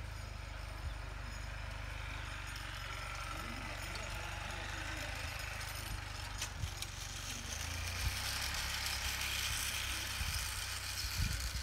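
Small riding tractor's engine running at a distance as it pulls a cart through snow, a steady low rumble that grows somewhat louder about two-thirds of the way through.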